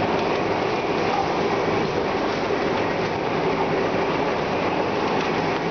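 Flexo printing machine for corrugated board running steadily while board sheets are fed onto it: a continuous, even mechanical noise from its rollers and drive, with no pauses.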